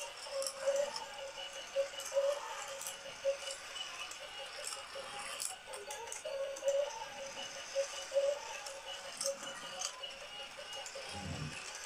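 Battery-operated toy car race track running: small plastic cars rattle and click along the plastic track and up the motorized lift, over a wavering tone that pulses on and off. A low thump comes near the end.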